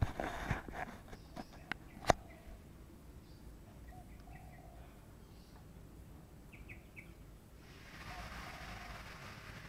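A few sharp knocks in the first two seconds, then faint bird chirps; a steady hiss comes in near the end.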